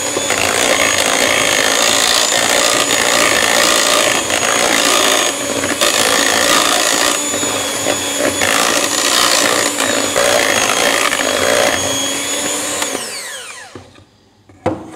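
Electric hand mixer running steadily, its twin beaters churning sponge cake batter in a metal bowl; about 13 seconds in it is switched off and its whine falls away as the motor spins down, followed by a single knock near the end.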